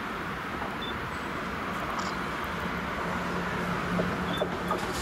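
SNCB electric multiple unit approaching slowly on the station tracks: a steady rumble of wheels and running gear, with a low motor hum coming in about halfway through and growing a little louder.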